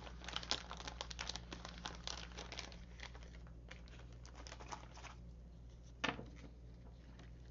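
Crinkling and rustling of plastic embellishment packaging and paper flowers being handled, a quick run of crackles at first that thins out, with one louder rustle about six seconds in.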